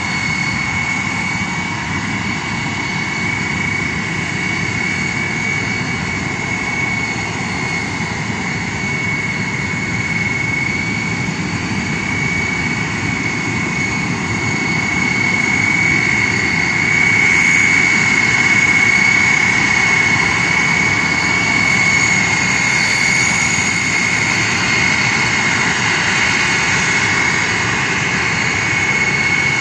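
Ilyushin Il-76MD's four Soloviev D-30KP turbofans running loud: a steady high whine over a dense low rumble, swelling slightly a little past the middle.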